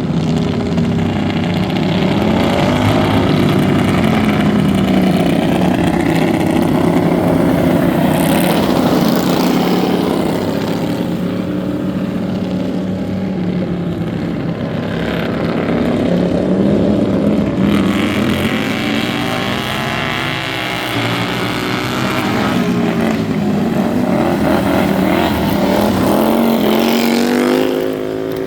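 Several racing lawn mower engines running hard, their pitch rising and falling as the mowers speed up, slow and pass by, with no break throughout.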